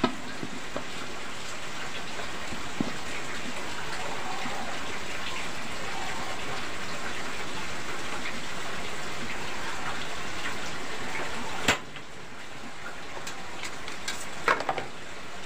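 Heavy rain falling in a steady, continuous hiss. About three-quarters of the way through, a single sharp click comes as the gas stove is lit, and a few lighter metal clacks of kitchen tongs follow near the end.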